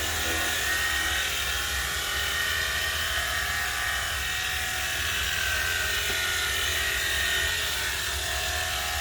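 Battery-powered portable pressure washer running steadily: its pump motor whines over the hiss of the water spray.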